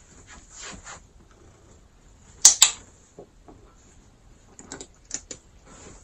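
A sharp double click about two and a half seconds in, with faint rustling before it and a few small ticks near the end.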